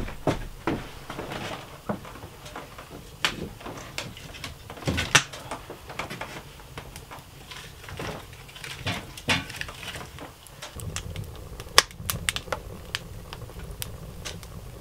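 A wood stove being tended at its open firebox: irregular knocks, clicks and clatter of wood and metal, with one sharp crack near the end. A steady low rumble comes in about two-thirds of the way through.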